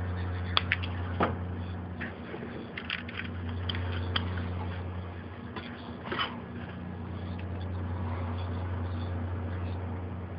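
A steady low hum with light, scattered clicks and taps as a soldering iron and solder wick are worked over a radio circuit board.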